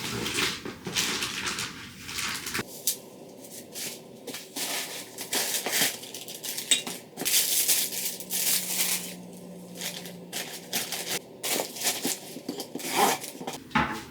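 Irregular crinkling, rustling and light knocks of objects being handled, in short bursts with brief pauses.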